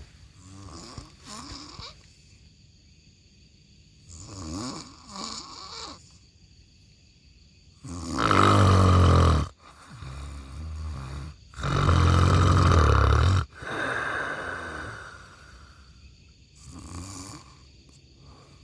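A person snoring loudly: two long, deep snores of about a second and a half each in the middle, each followed by a softer out-breath, between quieter breaths.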